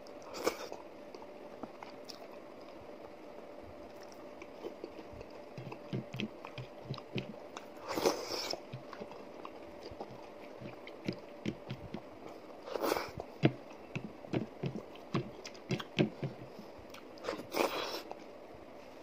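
Close-up mouth noises of a person eating mudde and chicken by hand: wet chewing and lip smacks in quick small clicks, with four louder, hissy bursts spread through.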